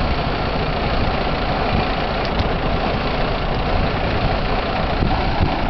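A diesel-soaked 1960s single-wide mobile home burning fully ablaze, with its walls already giving way: a loud, steady rushing noise with constant crackling.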